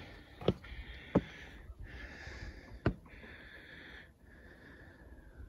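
A man breathing hard and sniffing in and out close to the microphone, in stretches of about a second, with three sharp knocks in the first three seconds.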